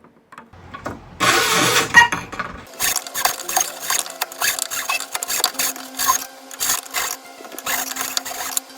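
A small power tool runs briefly for about a second and a half, then rapid back-and-forth hand-filing strokes follow, roughly three a second.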